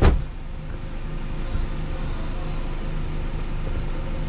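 A sharp thump right at the start, then the steady low rumble of a vehicle running.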